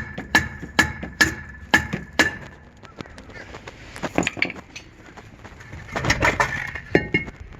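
A hammer striking a seized rear brake rotor to knock it off the hub: six ringing metallic blows about twice a second, then a few scattered clanks as the rotor works loose.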